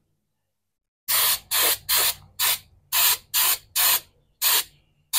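Undercoating sprayed onto the underside of a truck bed in about nine short hissing bursts, roughly two a second, starting a second in.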